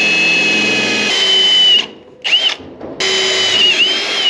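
Cordless drill boring holes through the baler's sheet-metal side panel: the motor whines, its pitch dipping and wavering as the bit loads up in the steel. It stops a little under two seconds in, gives a short burst, then runs again near the end.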